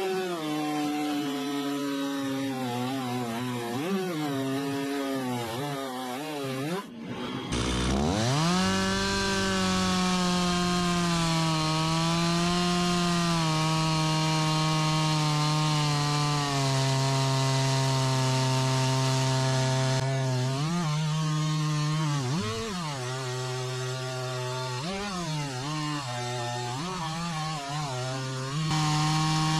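Stihl two-stroke chainsaw with a 20-inch bar, mounted in a Granberg Alaskan chainsaw mill, running at high revs as it rips a log lengthwise into a slab. Its pitch sags and recovers with the load, with a brief break about seven seconds in, a steady high stretch after it, then repeated rises and dips near the end.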